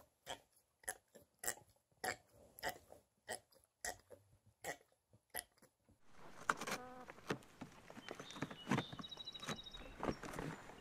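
A golden retriever gnawing a chew bone, short crunching clicks about two to three a second. About six seconds in it gives way to a noisier farmyard mix with rustling and a short animal call.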